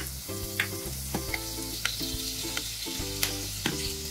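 Whole cloves, cinnamon and fenugreek seeds sizzling in hot oil, with several sharp, irregular pops as the spices splutter.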